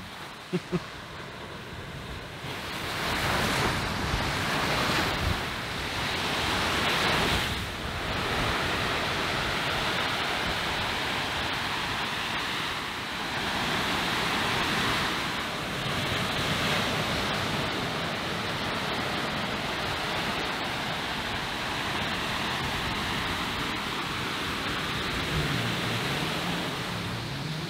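Ocean surf breaking and washing up a sandy beach, swelling and easing every several seconds, with wind in the background.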